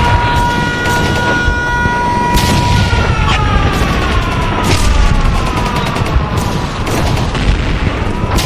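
An air-raid siren wailing over battle sounds: it holds one pitch, slides down for several seconds, then starts to rise again near the end, while gunfire and explosions go off throughout over a low rumble.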